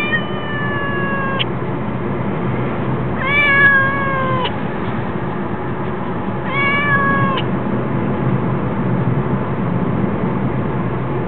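Ginger domestic cat shut in a pet carrier, crying with three long meows, each falling slightly in pitch and cutting off sharply; the last is the shortest, about two-thirds of the way through. A steady low hum runs underneath.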